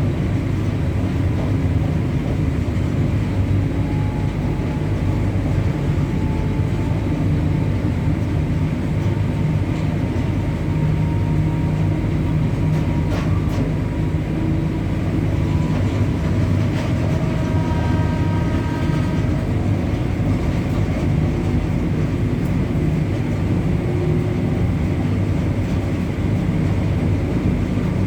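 WAG-9 electric locomotive running, a steady low rumble with faint whining tones that rise and fade midway.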